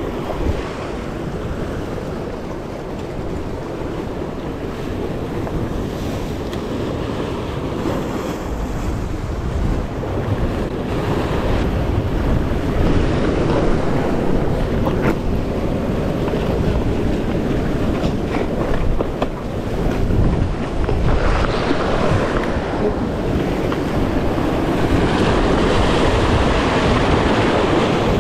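Sea waves surging and breaking against the boulders of a rock breakwall, with wind buffeting the microphone. The surf grows louder about halfway through.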